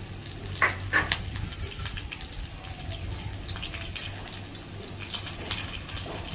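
Kitchen utensils knocking and clinking: two or three sharp knocks about half a second to a second in, then lighter scattered clicks, over a steady low hum.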